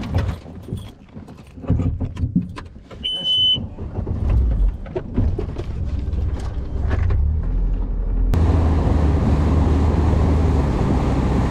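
Knocks and clatter aboard a fishing boat, with a short electronic beep about three seconds in, then the boat's motor running up. From about eight seconds in, a loud steady rush of motor, wind and water as the boat runs across the lake.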